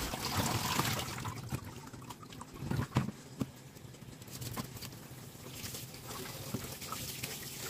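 Kitchen tap water running and splashing into a stainless steel sink while cut milkfish pieces are rinsed by hand, with a few light knocks from the fish and colander being handled.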